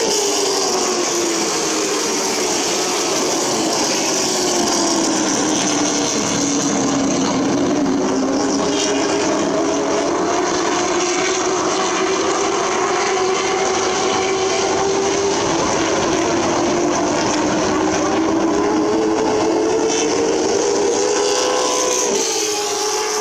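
Short-track stock cars racing around the oval, their engines running hard. The engine note sinks slowly through the first part, then climbs again near the end.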